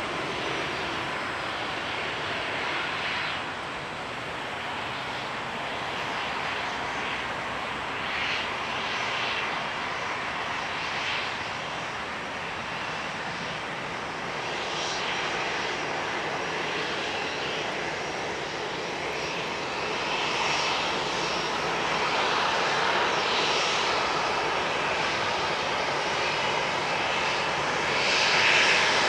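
Boeing 737-800's CFM56-7B jet engines running at low power as the airliner slows after landing and taxis off the runway. The sound grows louder over the last several seconds as the aircraft comes closer.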